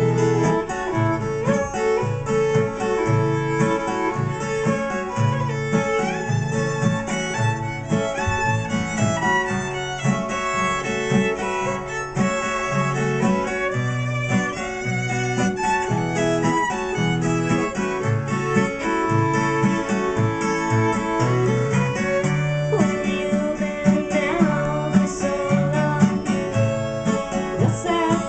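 Acoustic guitar and fiddle (violin) playing an instrumental passage of a folk song. The guitar keeps a steady rhythm of low notes under the bowed fiddle melody.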